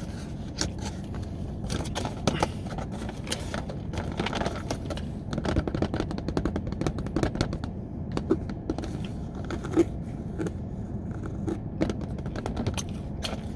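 A person chewing food close to the microphone: a run of small wet clicks and crackles from the mouth, thickest about halfway through, over a low steady hum.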